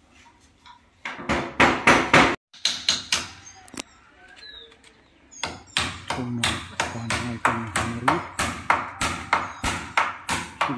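Hammer blows on a window frame: a few strikes in the first two seconds, then a steady run of about three blows a second from about halfway through.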